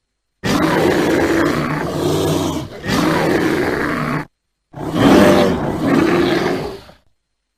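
Black bear growling: a long rough growl of about four seconds with a brief break partway through, then after a short gap a second growl of about two seconds. Each one stops abruptly into dead silence.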